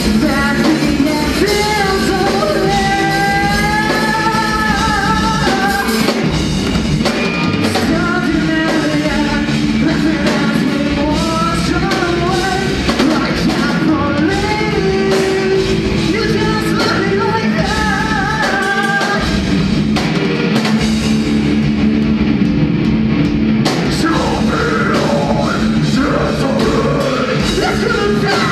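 Live rock band playing loudly: a singer's vocal line over electric guitars and a drum kit.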